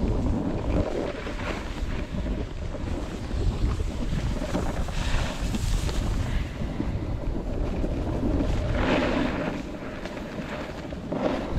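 Wind rushing over the microphone on a downhill ski run, with the edges hissing and scraping over the snow in turns, loudest about five, nine and eleven seconds in.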